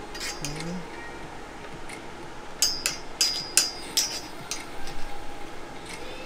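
Sharp metallic clinks from a bench-vise-mounted Summit Racing professional flaring tool as its yoke and forcing screw are handled, about six of them over two seconds in the middle, each with a short ring.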